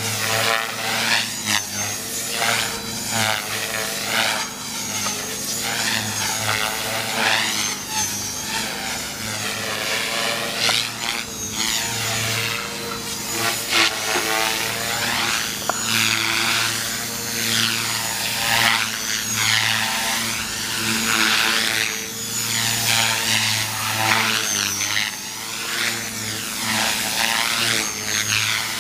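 Align T-Rex 450 Pro electric RC helicopter flying aerobatics, its rotor and motor whine rising and falling in pitch over and over, about once every second or two.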